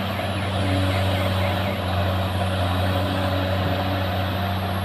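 Heavy mining diesel engines of a Cat 395 hydraulic excavator working and a Cat 772G haul truck standing beside it, a steady deep drone that holds at one pitch.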